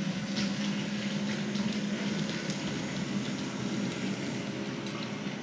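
H0-scale model tram running along the layout's track: a steady whir from its small electric motor and wheels on the rails, with a low hum and occasional sharp clicks.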